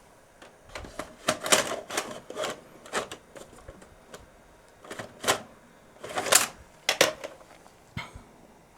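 VHS tape deck mechanism of a DVD/VCR combo clicking and clacking in irregular runs as it tries to load a tape and fails, with its cover off.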